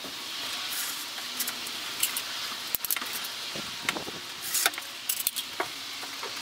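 Small metal hardware and wooden pieces being handled and set down on a workbench: scattered sharp clicks and clinks of L brackets and screws over a steady hiss.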